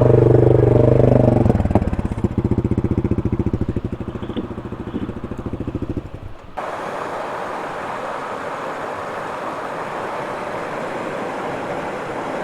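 An ATV engine is revved, then settles into a steady, evenly pulsing idle. After about six seconds it gives way abruptly to the steady rush of creek water.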